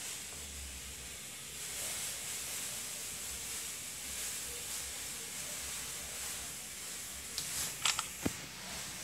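Steady hiss with a few short clicks near the end.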